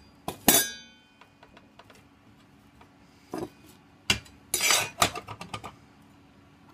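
Metal clinks and clanks as a circular saw's blade and its fittings are handled during removal: a sharp ringing clank about half a second in, a short knock near the middle, then a quick run of clinks a little past four seconds.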